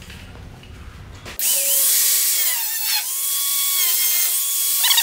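Angle grinder with a thin cutting disc starting up about a second and a half in and cutting through rusty automotive sheet metal, a loud whine whose pitch dips and recovers as the disc bites into the steel.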